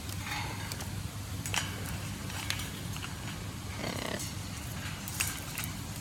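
Caged macaws making a short, rough call about four seconds in and a brief rasp near the start, with a few sharp clicks and a steady low hum.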